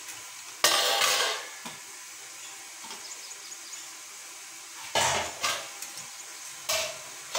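Metal steamer plates and vessels clanking against each other as they are handled: one clatter under a second in, then three more knocks from about five seconds in, with a faint steady hiss between.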